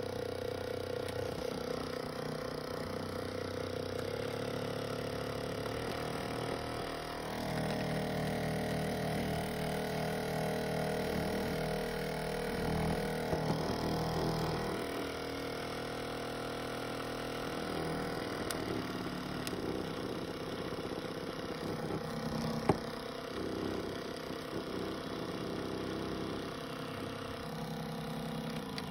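Sharper Image MSG-H401 handheld massager's motor running with a steady hum. The hum shifts pitch and pattern a few times as the intensity setting is stepped up. A single sharp click comes about 23 seconds in.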